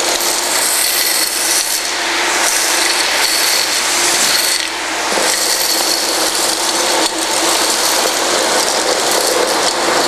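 Three-motor Ruwac WS2320-HD industrial vacuum running at full suction, with crushed PVC plastic chips rattling as they are drawn up the metal bulk wand and 3-inch hose. A loud, steady rush of air under a rapid clatter of plastic pieces.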